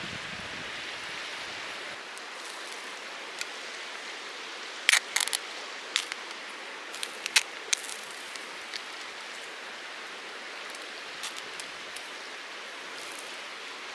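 Steady rush of a mountain stream, with a scatter of sharp pops and crackles from the campfire and grilling charcoal, the loudest cluster about five to seven and a half seconds in.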